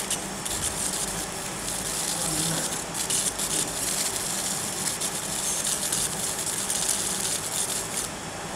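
Laser marking machine engraving stainless steel: a steady hiss that flickers in the highs.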